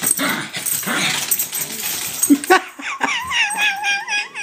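Two small dogs play-wrestling, a scuffling noise at first. About two and a half seconds in, a high, wavering dog whine starts, rising and dipping about four times a second.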